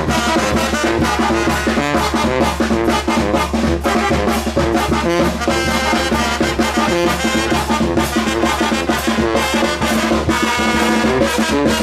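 Mexican banda brass band playing, with trumpets and trombones over a drum beat.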